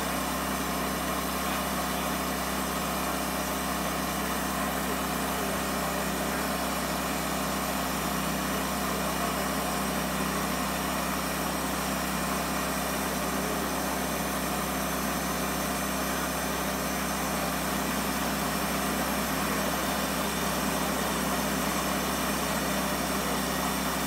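Wood-Mizer portable sawmill with a Lathe Mizer attachment running steadily while a log turns and is cut down, a constant machine drone with a hiss over it.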